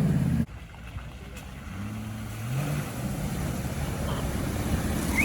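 Off-road 4x4 engine running, cut off sharply about half a second in, then picking up again with a rising pitch as it revs and grows louder toward the end.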